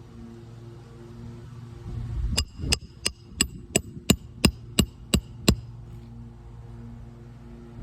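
Roofing hammer striking a roof snake about ten times, roughly three blows a second, each with a short metallic ring, driving a nail back in under a lifted three-tab shingle.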